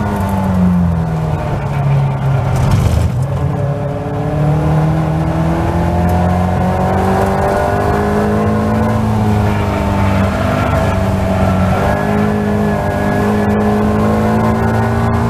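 Caterham Seven race car engine at high revs, heard from the open cockpit. The pitch drops over the first few seconds as the car slows for a corner, then climbs steadily under full throttle, dips briefly about two-thirds of the way through and rises again to hold near 6,400 rpm.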